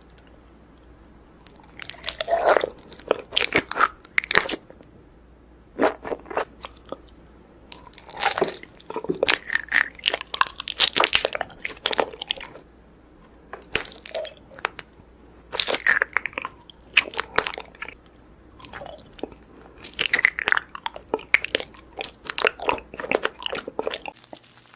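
Close-miked eating: crunchy bites and wet chewing in bursts of a second or few, separated by short pauses.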